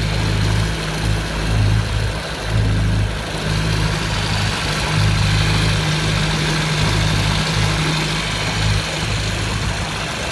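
Honda AquaTrax R-12X jet ski's turbocharged four-cylinder engine running steadily at low revs, a low drone with hiss above it.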